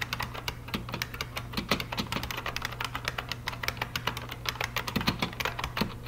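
Fast typing on a buckling-spring mechanical keyboard: a dense, steady stream of sharp clicks, several a second, each from a key's spring buckling and snapping as it is pressed.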